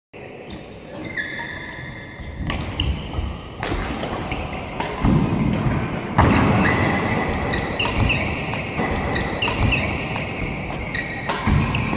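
Badminton doubles rally: repeated sharp smacks of rackets hitting the shuttlecock, with thuds of players' feet on the court.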